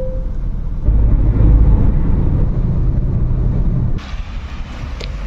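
Car driving noise heard inside the cabin: a steady low rumble that grows louder about a second in. About four seconds in it cuts abruptly to a quieter, even outdoor hiss.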